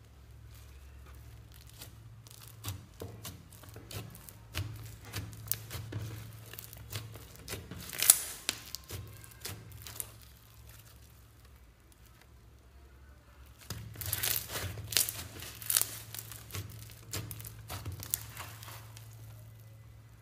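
Slime being squeezed and worked by hand, giving sticky crackles and pops in two spells with a short pause between them. A low hum runs underneath.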